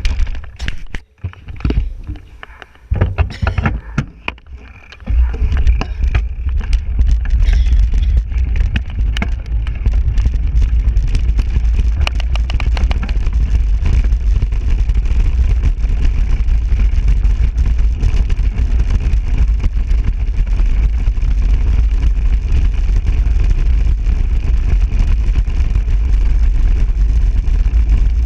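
Wind buffeting the microphone on a fast mountain bike descent, a loud low rumble. For the first five seconds it comes and goes with clicks and rattles, then runs on steadily.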